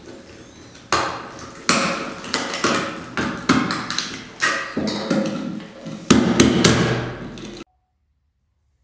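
A large knife chopping and cracking into a plastic headphone earcup: about a dozen sharp, irregularly spaced cracks and crunches that grow louder, then stop abruptly near the end.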